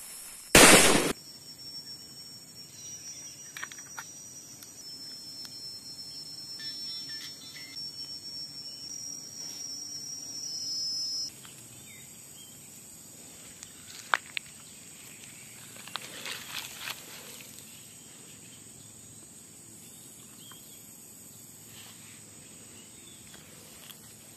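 A ball firecracker (mercun bola) goes off with one sharp bang about half a second in. Afterwards a steady high insect drone runs until about eleven seconds in, with a few faint clicks and rustles later on.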